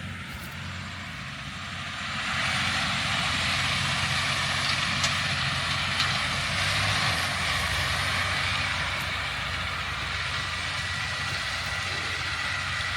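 Farm tractor engine running, with a steady rush of mechanical noise that swells about two seconds in and then holds.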